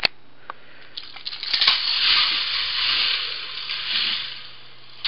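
K'nex roller coaster train rolling along its plastic track: a rattling hiss that builds about a second and a half in and fades near the end, over a low steady hum.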